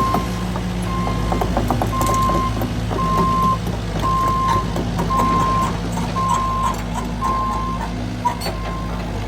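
Back-up alarm on heavy demolition equipment beeping about once a second in one steady tone, over the machine's engine running, with scattered clanks.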